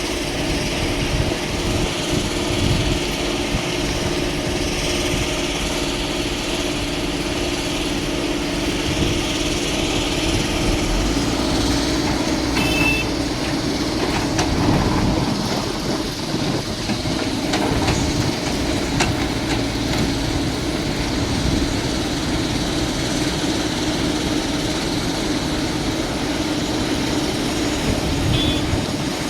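Excavator's diesel engine running steadily, its pitch dipping for a few seconds about halfway through, with a couple of brief metallic clinks.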